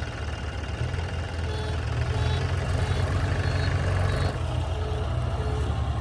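Diesel engine of a New Holland 3630 tractor running and pulling a trailer loaded with earth away, with a steady low rumble that gets louder about a second in.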